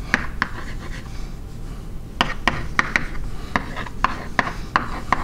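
Chalk writing on a blackboard: short taps and scrapes, a couple near the start, then about three a second from two seconds in.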